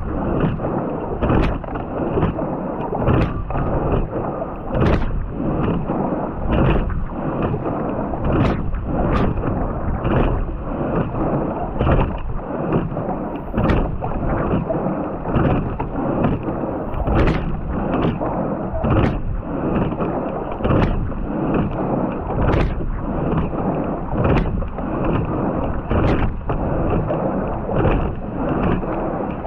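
Quad scull being rowed at racing pace, heard from a rigger-mounted camera: water rushing past the hull, with a sharp knock from the oar in its oarlock once each stroke, about every 1.8 seconds.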